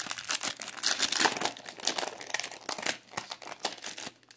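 Foil wrapper of a Topps Merlin Chrome trading-card pack crinkling and tearing as it is pulled open by hand, a quick irregular run of crackles.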